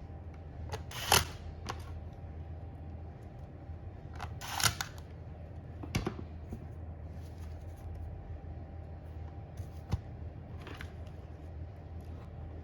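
Scattered handling sounds of a device being worked on by hand: two short scraping rustles about a second in and near the middle, sharp clicks about six and ten seconds in, over a steady low hum.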